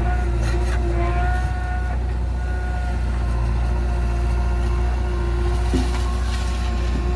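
Heavy diesel engine running steadily with a deep low hum, and a higher whine that comes and goes at times.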